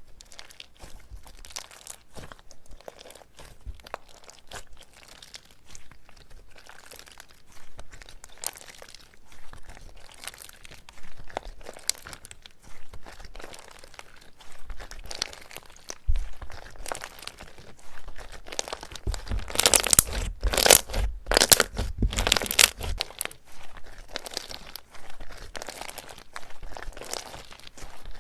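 Slime being squeezed and pressed by hand, giving dense crackling and crunching that grows loudest a little past the middle, then eases off.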